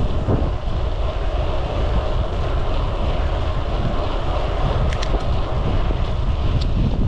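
Wind buffeting the microphone on a moving bicycle: a steady, deep rushing rumble, with a couple of faint ticks in the second half.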